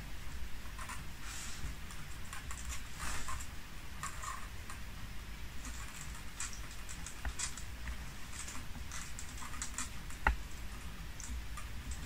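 Small ticks, light taps and scratchy rustles of balsa-wood parts being handled and fitted while a tail control surface is glued in place, with one sharper click about ten seconds in.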